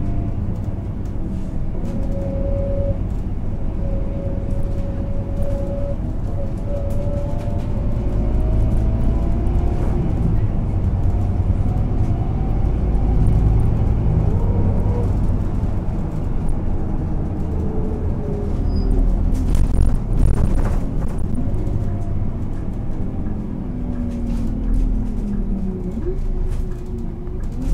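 Scania K230 UB city bus with a ZF automatic gearbox under way: a steady low diesel drone with a whining tone that rises in pitch as the bus gathers speed and falls again near the end.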